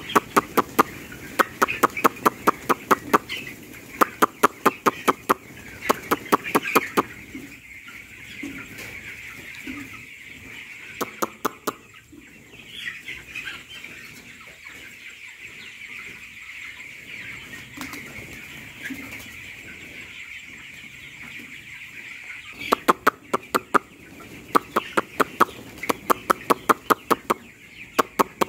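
Broiler chickens peeping and clucking together, overlaid by runs of sharp, rapid clicks made by mouth, about five a second. The clicks fill the first several seconds, stop, and come back near the end.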